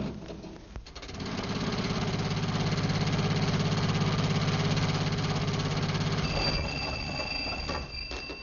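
Old motor vehicle engine, the jitney, chugging quickly as it pulls away: the sound starts about a second in, grows louder, then fades out. Two faint steady high tones come in near the end.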